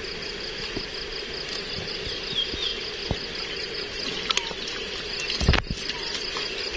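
Water trickling and dripping off a folding mesh shrimp trap as it is lifted out of a pond, over a steady pulsing insect trill. There are a few small clicks, and a low thump about five and a half seconds in.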